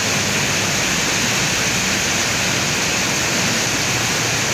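Heavy tropical downpour: a steady, dense hiss of rain.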